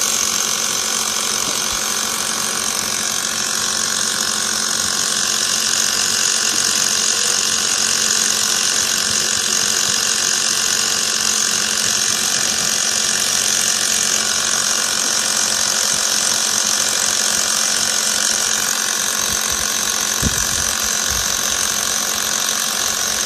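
Small portable air compressor running steadily, a continuous buzzing drone with a strong high hiss.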